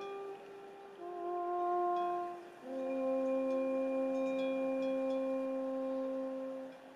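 Alphorn playing long held notes, each lower than the last, the final one held about four seconds, echoing around the mountains.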